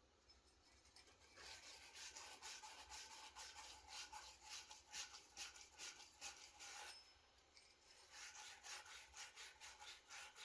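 Hand pipe-crimping tool being worked on a 3/4-inch pipe fitting: a fast run of faint scraping clicks that pauses for about a second partway through, then carries on.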